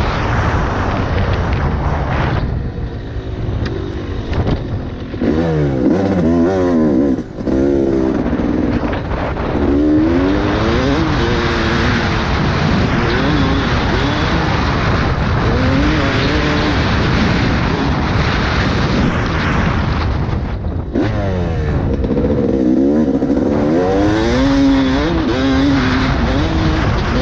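Yamaha YZ250 two-stroke motocross bike being ridden hard, its engine pitch climbing and falling again and again as it revs through the gears, with the throttle briefly shut off twice.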